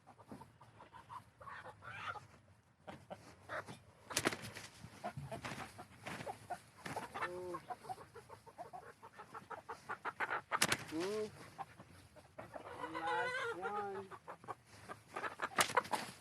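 Young chickens (pullets) clucking and squawking as they are handled, with a run of calls about two-thirds of the way through, and a few sharp knocks in between, twice near the end.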